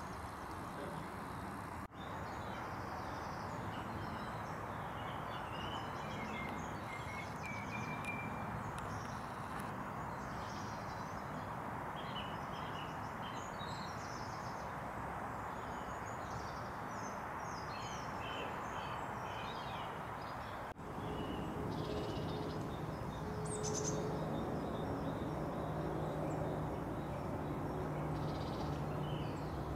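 Outdoor background noise with birds chirping and calling on and off. The sound drops out briefly twice, and after the second break, about two-thirds through, a steady low machine hum joins in.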